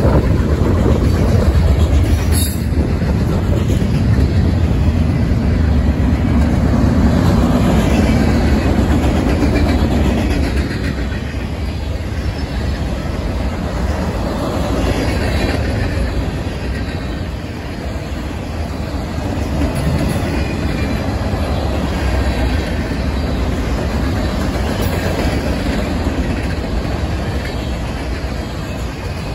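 Freight cars of a passing Norfolk Southern mixed freight train rolling by: a steady noise of steel wheels running on the rails.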